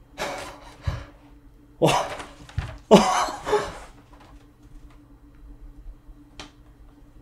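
A man's short bursts of excited, breathy laughter and gasps, four of them in the first four seconds, then a single light click.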